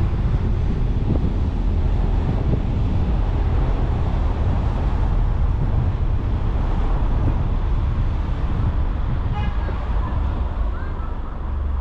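Car driving along a city street, heard through a microphone mounted on the car: steady tyre and road rumble with wind buffeting the microphone. Near the end it eases off into a steadier low hum as the car comes to a stop.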